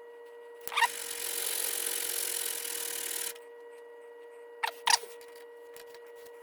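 A single-bevel broadhead stroked across sandpaper on a glass plate: a click, then one steady rasping hiss for about two and a half seconds, followed by two short sharp clicks. A faint steady whine sits underneath.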